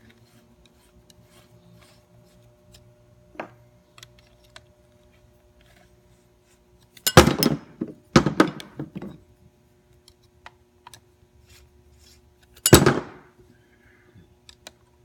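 Metal hand tools clinking and clattering while the compressor pump head is worked on: a few light clicks, then a loud burst of clattering about seven seconds in and another shorter one near the end.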